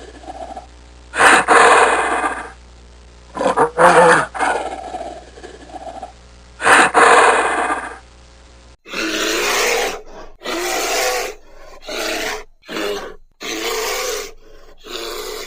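Creature sound effects for a gorilla-bear hybrid: three loud roars over a steady low hum, then, after a break about nine seconds in, a run of about six shorter grunting roars.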